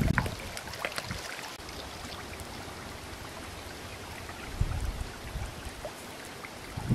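Steady rush of a shallow stream running over rocks, with a few light clicks in the first second and low thuds a little past halfway.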